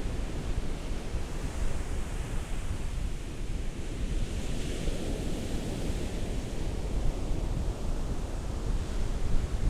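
Ocean surf: waves break and wash on the shore over a steady low rumble. A wave swells and washes in about halfway through.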